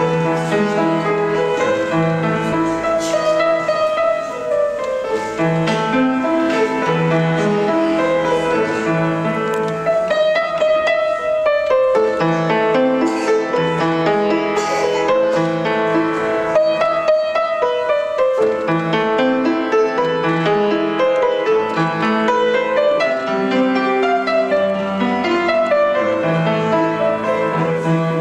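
Solo piece played on an upright piano: a continuous melody over repeated bass notes, without a break.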